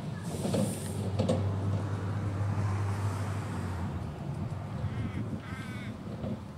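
A crow cawing, two short calls about five seconds in. Under it, in the first half, a steady low hum from the electric tram running away along the track.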